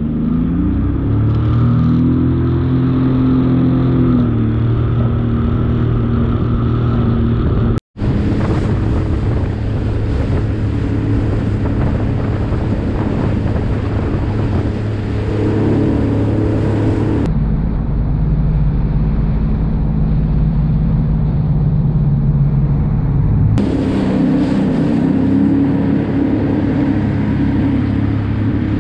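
Sea-Doo jet ski engine running under way, its pitch rising over the first couple of seconds, with water rushing past the hull. The sound breaks off briefly about eight seconds in and changes abruptly twice later on.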